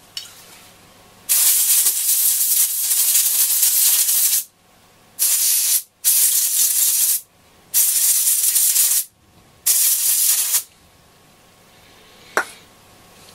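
Aerosol can sprayed through a thin straw nozzle in five hissing bursts, the first about three seconds long and the rest about a second each, cleaning corrosion from a radio's tuning capacitor vanes. A single click comes about a second before the end.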